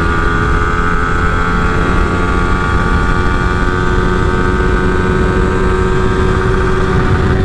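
Yamaha R15's 155 cc single-cylinder engine held at high revs under full throttle in fifth gear, a steady high drone that rises slightly in pitch as the bike gains speed. Heavy wind rumble on the microphone from the high road speed.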